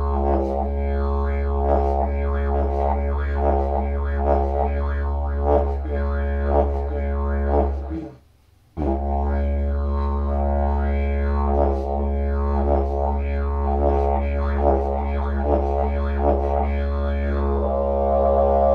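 Didgeridoo played as a continuous low drone, its overtones swept up and down in a repeating rhythmic pattern. The drone stops for just under a second about eight seconds in, then picks up again.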